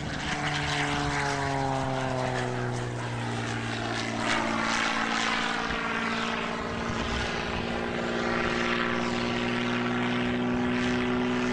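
Aerobatic propeller plane's piston engine and propeller droning through a manoeuvre. The pitch slides down over the first few seconds, surges briefly about four seconds in, then holds steady.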